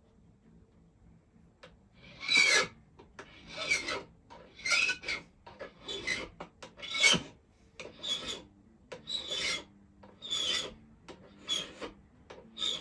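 Hand file draw-filing the end of a silver ring band: about ten rasping strokes, roughly one a second, beginning about two seconds in.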